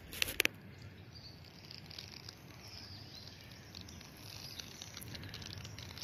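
A few crackles of footsteps on dry leaf litter and twigs in the first half second, then quiet forest ambience with faint rustles.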